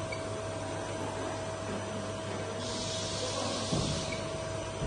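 Takisawa TS-3000YS CNC turning center running with a steady hum and a thin steady whine. About two and a half seconds in, a hiss lasts about a second and a half, with a short thud near its end.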